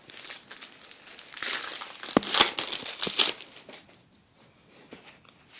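Crinkling and crackling of a trading-card pack wrapper being handled and opened, in a few noisy bursts with sharp crackles around the middle.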